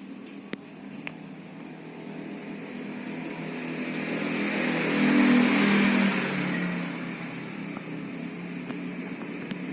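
A motor vehicle passing by: its engine sound swells to a peak about five seconds in, then fades away.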